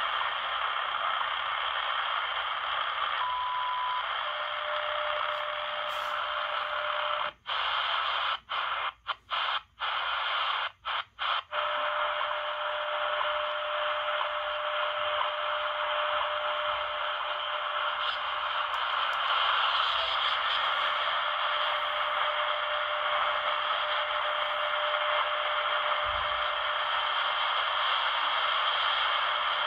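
Hanrongda HRD-747 shortwave receiver's speaker playing the WWV time signal through a steady hiss: a brief higher tone about three seconds in, the minute marker, then a steady lower tone. The audio cuts out several times in quick succession as the receiver is retuned, and the steady tone comes back on the new frequency, fading in and out.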